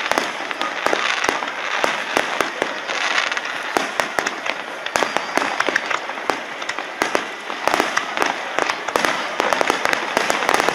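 Aerial fireworks shells bursting in a rapid barrage: many sharp bangs a second, overlapping, with no lull.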